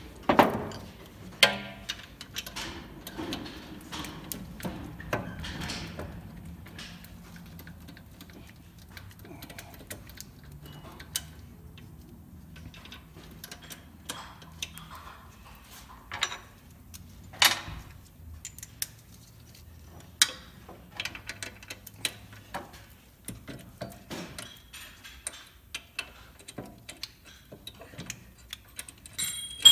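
Scattered metallic clicks, clinks and knocks of a 2010 BMW 528i xDrive's rear hub and wheel bearing assembly being worked into the knuckle by hand while its bolts are started. A few sharper knocks stand out, the loudest near the start and about 17 seconds in.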